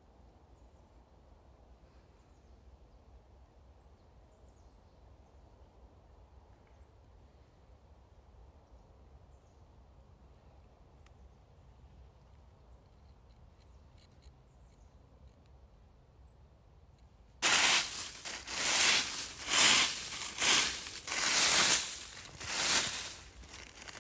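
Faint outdoor quiet with a few faint high chirps. About 17 seconds in, dry fallen leaves start crunching and rustling loudly in about seven surges over some five seconds, as the leaf litter is disturbed.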